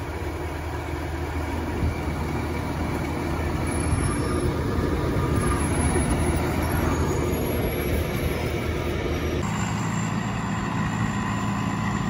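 Gleaner F2 combine's engine running steadily close by. About nine and a half seconds in, the sound changes abruptly to a steadier, lower engine hum.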